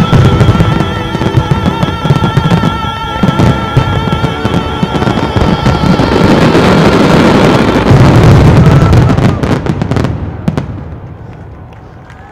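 Fireworks show barrage: many shells going off in rapid succession over loud orchestral-style show music. The barrage stops abruptly about ten and a half seconds in, and the sound falls away.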